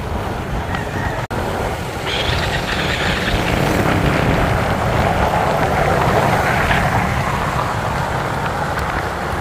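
Motorcycle engine, tyre and wind noise from a rider's camera while riding along a road. A brief cut-out comes just over a second in, and after it the noise is louder.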